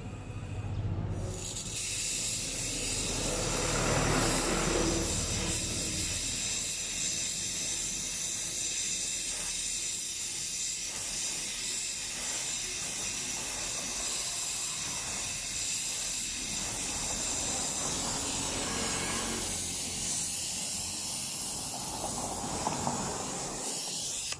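Gas brazing torch flame hissing steadily while heating a copper pipe joint; it starts suddenly about a second in and cuts off near the end.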